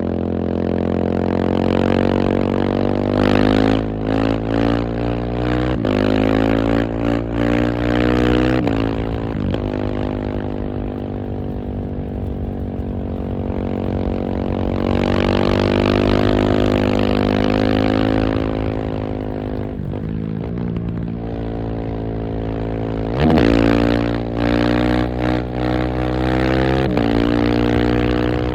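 KTM 690 SMC R's single-cylinder engine pulling hard through the gears, its note climbing and then dropping sharply at each shift, with a spell of easier running in the middle. It gives short sharp crackles off the throttle between pulls.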